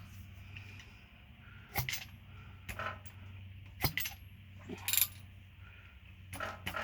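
Hand tools working on an engine: several sharp metallic clinks and knocks, then rapid, even ratchet clicking near the end as the crankshaft is turned by hand. A steady low hum sits underneath.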